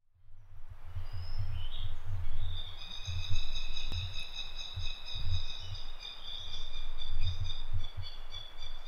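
Wind buffeting the microphone in uneven low rumbles, over a steady, shrill high-pitched whine, typical of insects, that sets in about a second in.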